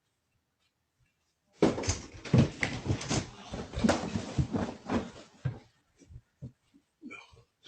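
Silence, then about a second and a half in a loud, rapid run of bangs and thuds lasting about four seconds, thinning out to a few scattered knocks.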